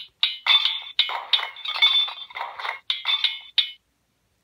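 Hammering sound effect from a children's sound book's button, played through its small speaker: about a dozen quick metallic hammer strikes that stop about half a second before the end.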